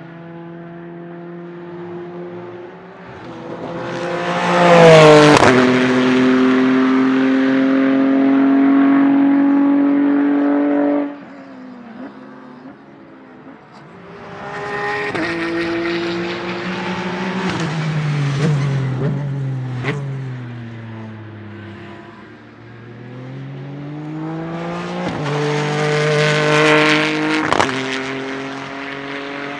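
Ligier JS P4 prototype's 3.7-litre naturally aspirated Ford Cyclone V6 racing engine on track. Its note rises to a loud peak about four seconds in and holds high until it cuts off suddenly near eleven seconds. Later the revs fall in a long steady glide, then climb again to a second loud pass near the end.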